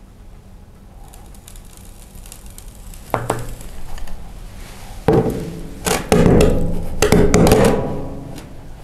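Sand poured from a glass bowl into a glass jar. A knock comes about three seconds in, then loud knocking and rubbing from about five to eight seconds as the full jar is handled and tapped on the tabletop to settle the sand.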